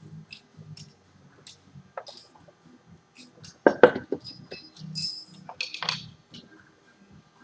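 Metal tools and engine parts clinking and knocking as they are handled, with two sharp knocks about halfway through and a ringing metal clink a second later.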